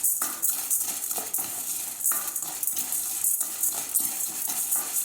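A spatula stirring chana dal as it dry-roasts in a pan without oil, making a continuous irregular scraping and rattling of the lentils against the pan.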